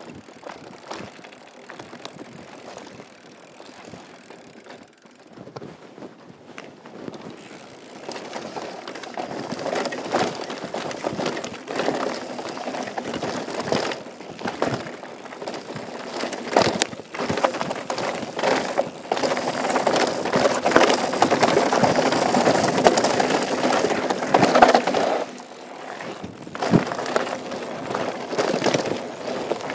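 Mountain bike riding fast down a rough dirt downhill trail: tyres rolling over dirt and rocks, with frequent knocks and rattles from the bike. It gets louder as speed builds after about eight seconds and eases briefly near the end.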